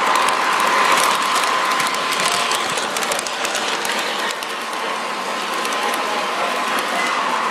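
Lionel O-gauge model subway train running past: a steady gear-and-motor whine with a fast stream of small clicks from the wheels on the track, dipping slightly about halfway through.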